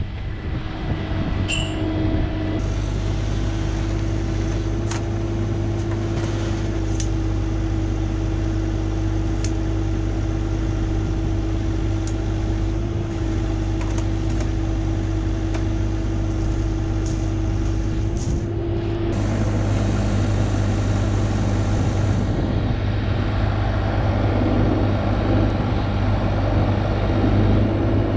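Diesel engine of a compact construction machine running steadily, with scattered sharp clicks and knocks. The engine note and noise change about two-thirds of the way through.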